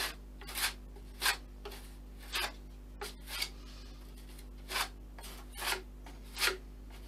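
Plastic ID card spreading lightweight filler over a model plane's fuselage, in about a dozen short scraping strokes that come every half second to a second. A steady low hum runs underneath.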